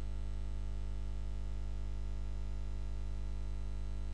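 Steady low electrical hum with a faint hiss, unchanging throughout: the background noise of the narration recording setup.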